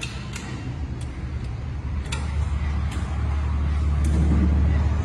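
Farmtrac 6090 tractor's turbocharged diesel engine running steadily and growing louder in the second half, with a few light clicks over it.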